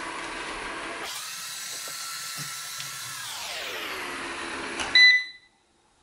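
Eufy robot vacuum running, its motors winding down with a falling whine, then one short high beep about five seconds in as it settles onto its charging dock, after which its sound stops.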